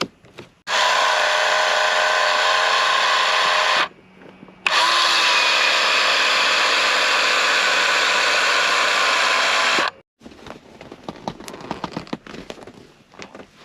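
Small electric motor of a power accessory on a 1992 BMW 7 Series (E32) running twice, a steady whine for about three seconds, then after a short pause for about five seconds, stopping abruptly each time. Light clicks come before and after.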